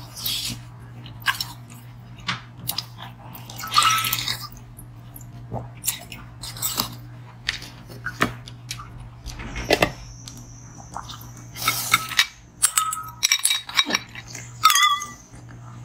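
Chunks of ice being bitten and crunched in the mouth: irregular sharp cracks and crunches. Near the end ice cubes clatter in a glass bowl as a hand picks through them. A low steady hum lies underneath.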